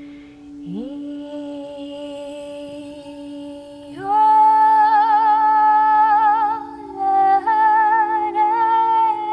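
A crystal singing bowl rings with one steady, unbroken tone while a woman sings wordless held notes over it. Her voice slides upward about a second in, then swells into a louder sustained note with vibrato about four seconds in, breaks briefly near seven seconds and picks up again on a slightly different pitch.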